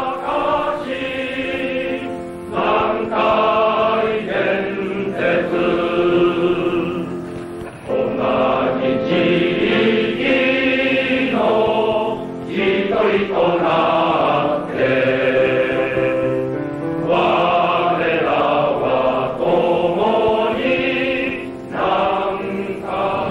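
A large choir singing a company song in unison, in sung phrases a few seconds long with brief breaths between them.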